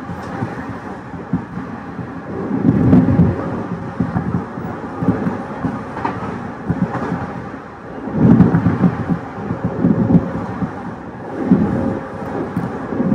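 Interior running noise of a 209 series EMU motor car in motion: a continuous rumble of wheels on rail that swells louder several times, under a faint steady hum.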